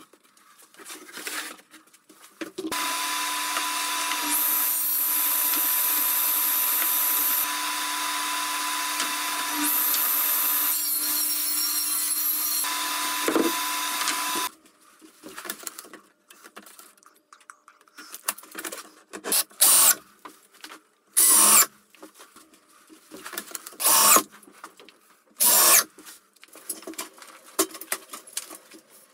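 Table saw running for about twelve seconds, ripping a thin strip of plywood. It is followed by a series of short, loud bursts of noise a second or two apart.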